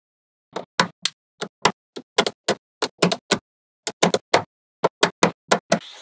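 Small magnetic balls clicking as they snap together one at a time: about twenty sharp clicks at an uneven pace, starting about half a second in.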